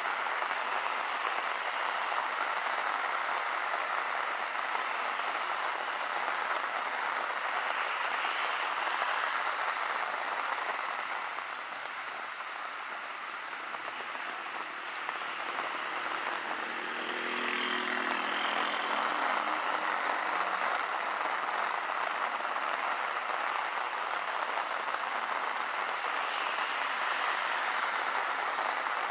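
Steady rain falling on a city street, an even hiss that eases a little near the middle. About seventeen seconds in, a low humming tone briefly rises and falls over the hiss.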